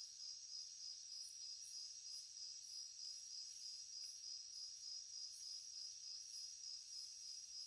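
Steady high-pitched insect chorus, with a fainter, higher pulsing note about twice a second.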